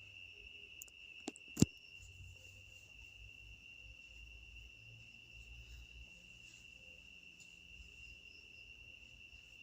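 Crickets singing in one steady, unbroken high trill, with two sharp clicks about a second and a half in, the second of them the loudest sound.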